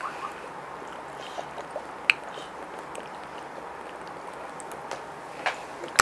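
Eating and drinking by hand: fingers working biryani rice on a banana leaf, chewing and gulps from a plastic bottle, with a few sharp clicks, the sharpest about two seconds in.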